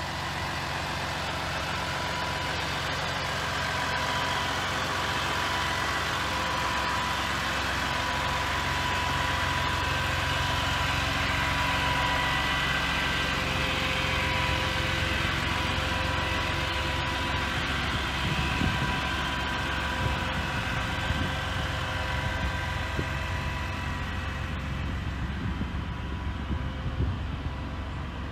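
RAM 5500's 6.7-litre Cummins inline-six turbodiesel idling steadily, with a steady high whine from the hydraulics as the rollback bed tilts up and slides down to the ground.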